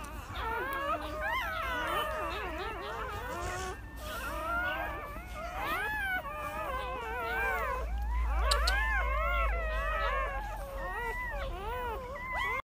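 A litter of newborn puppies squealing and whining: several thin cries overlap, each rising and falling in pitch, without a break. The sound cuts off suddenly near the end.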